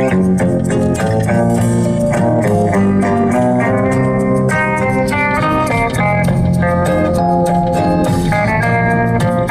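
Background instrumental music led by guitar, with a steady beat and bass.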